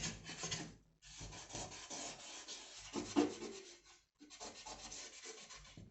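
Rasping, abrasive rubbing in three long passes, broken by short pauses about a second and four seconds in.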